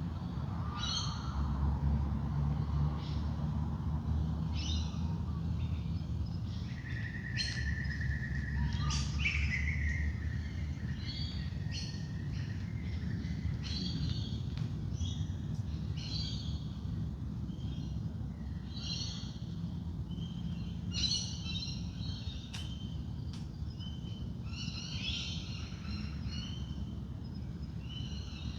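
Dawn chorus of wild birds: many short chirps and twitters from several birds, with one held whistled note about seven seconds in that gives way to a falling whistle. A steady low rumble runs underneath.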